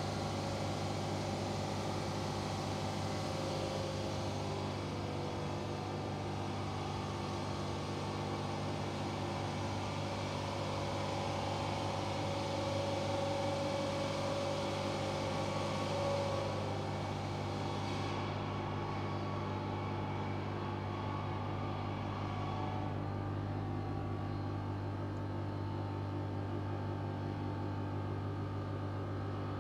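Steady low hum of shop machinery motors running at idle, with a high hiss that fades away about eighteen seconds in.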